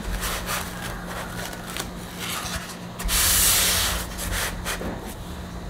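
Polystyrene foam packing pieces rubbing and scraping against each other as they are handled and pulled apart, with a louder, longer scrape lasting about a second near the middle.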